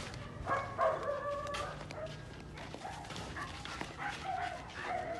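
Young Belgian Malinois vocalising: a drawn-out whining call about half a second in, then a string of short barks and yips.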